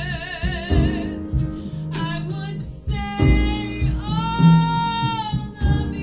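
A woman sings a slow, sustained vocal line with a small jazz band of nylon-string guitar, piano and upright bass. A long note with wide vibrato ends about a second in, and another long, steady note is held in the middle.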